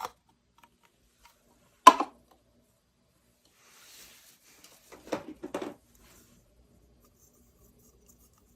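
Pieces of a miniature toy kitchen set being handled. One sharp click comes about two seconds in, then a faint rustle, then a short run of small clicks and clatter around the middle.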